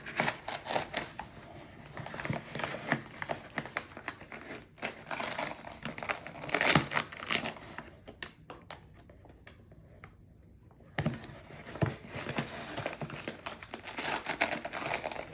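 Packaging crinkling and rustling, with scattered clicks and taps, while a dry ingredient is scooped out with a quarter-cup measuring cup; it goes quiet for a few seconds about two-thirds of the way through.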